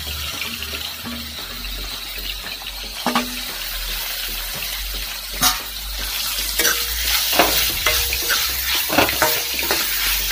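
Chopped capsicum and onion frying in oil in a kadai on a low flame, with a steady sizzle. A steel spoon stirs them, scraping and clacking against the pan several times, more often in the second half.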